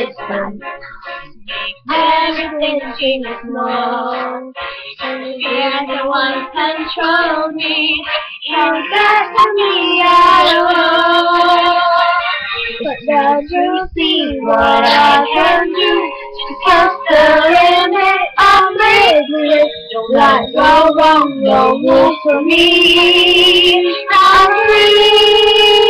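Two young girls singing along to backing music, with a long held note near the end.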